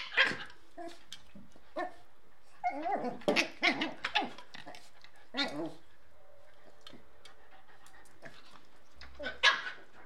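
Two puppies barking and yipping at each other in rough play, in short bursts with quiet gaps between, the busiest stretch a few seconds in.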